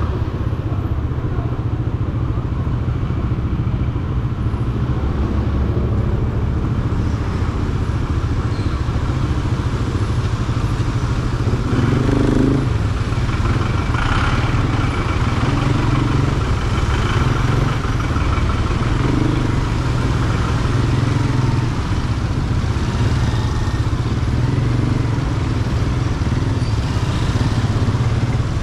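Motorcycle engine running at low speed in stop-and-go traffic, a steady low drone, with the sound of surrounding vehicles and a brief louder patch about twelve seconds in.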